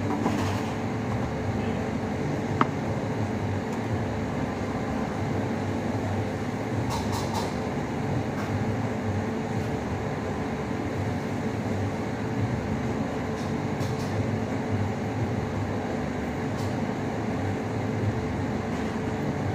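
Steady low mechanical hum of room machinery with a faint steady tone running through it, and a few light clicks.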